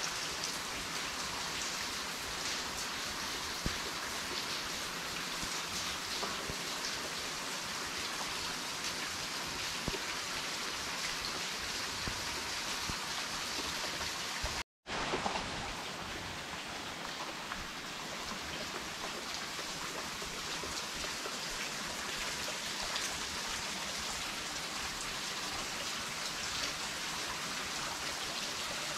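Steady hiss of rain falling. It cuts out completely for a split second about halfway through, then carries on the same.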